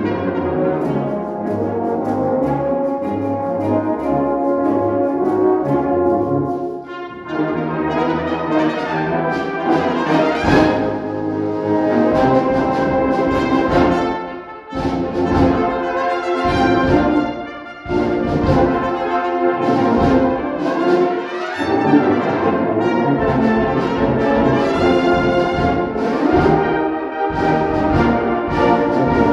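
Solo cornet playing the melody over a full brass band accompaniment. The band comes in more heavily, with a strong low beat, from about ten seconds in.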